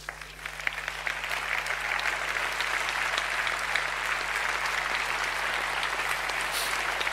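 A large audience applauding, the clapping swelling over the first second or two and then holding steady.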